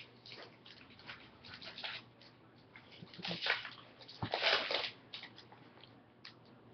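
Baseball card packs and cards being handled: rustling and crinkling of wrappers and cards in short bursts, loudest about three and a half and four and a half seconds in.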